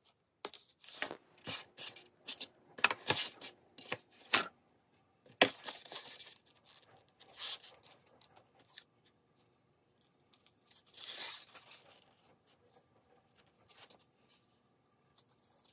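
Hobby knife scoring a sheet of styrofoam in light passes along a metal square: a series of short cutting strokes, with a longer stroke about eleven seconds in.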